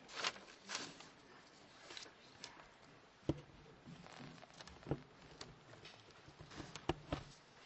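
Scattered light knocks and clicks, a handful of sharp taps a second or more apart, from a speaker settling in at a lectern and its microphones.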